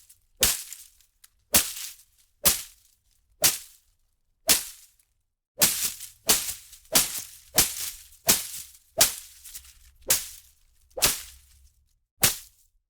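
Leafy plants and undergrowth being whipped and slashed: a string of sharp swishing strikes, about one a second at first, then a faster run of hits through the middle, with one last strike near the end.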